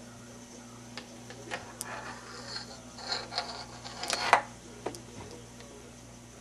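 Handling noise: a scatter of light clicks and short rubbing sounds, busiest a few seconds in, with the sharpest click about four seconds in, over a low steady hum.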